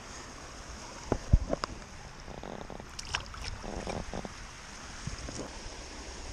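A largemouth bass let go at the bank splashing back into the pond about three to four seconds in, after a few sharp knocks of handling, over a steady rush of water.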